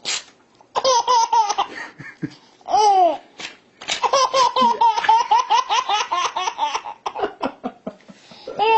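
Baby laughing hard in bursts of rapid, high giggles, with one long run of rhythmic laughter in the middle, set off by short rips of paper being torn between the laughs.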